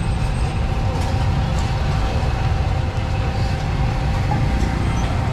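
A steady low mechanical rumble with a faint continuous hum.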